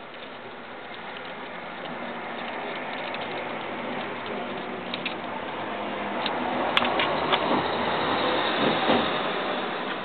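Screwdriver turning a screw in a 50cc scooter's transmission (variator) cover: a continuous rasping mechanical noise that builds and peaks past the middle, with a few sharp clicks about six to seven seconds in.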